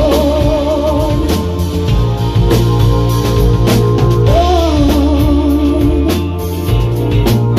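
Live rock band playing a ballad: a woman sings lead over electric guitar and a drum kit, holding long wavering notes near the start and again from about halfway through.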